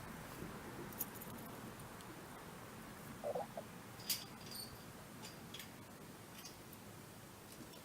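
Hens clucking faintly while free-ranging: one short call about three seconds in, with scattered light clicks and a brief high chirp about four seconds in.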